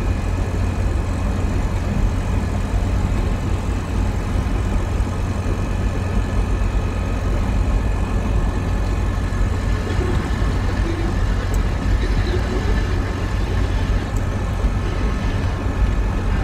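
Steady low rumble of a car's engine and road noise, heard inside the cabin while driving.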